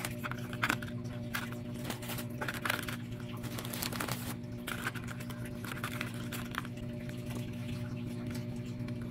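Graham crackers being set down in a thin plastic tub and broken to fit: a scatter of light taps, clicks and rustles over a steady low hum.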